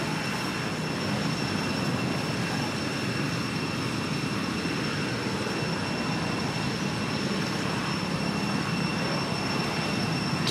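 Steady rushing outdoor background noise with a thin, steady high-pitched whine over it, unchanging throughout.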